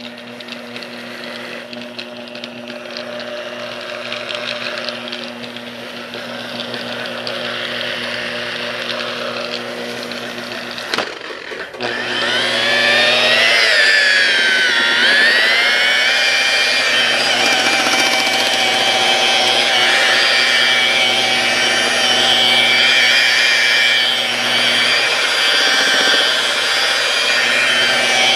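Low-RPM buffer with a buffing pad running on a plastic headlight lens with rubbing compound. The motor runs steadily, cuts out briefly about eleven seconds in, then runs louder with a whine that dips in pitch and recovers.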